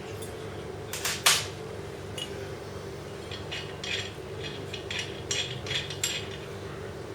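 Metal parts clinking and clattering as they are handled, with one sharp metallic knock about a second in and a run of small clinks a few seconds later, over a steady low hum.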